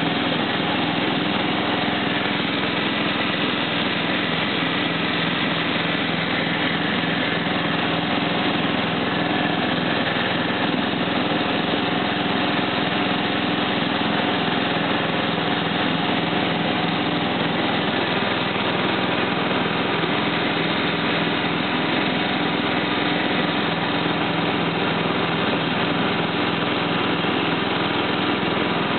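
Simplicity 4211 lawn tractor's engine running steadily at an even speed as the tractor drives along.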